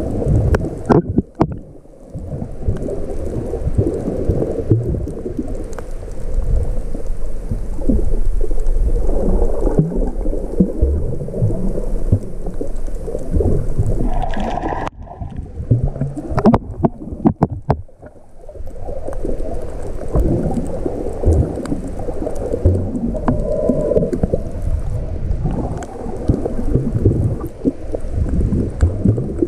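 Muffled underwater noise heard through a GoPro Hero 5 Black's waterproof housing: a dense low rumble and gurgle of moving water, with scattered sharp clicks. It thins out for a few seconds about halfway, where several clicks stand out.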